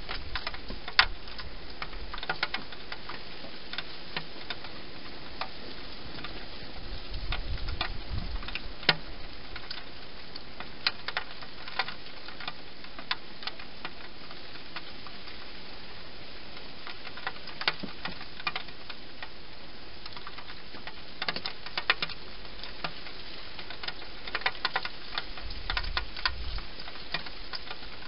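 Wild hedgehog eating inside a clear plastic feeding box: irregular sharp clicks and crunches of chewing, over a steady hiss. A couple of brief low bumps, about eight seconds in and near the end.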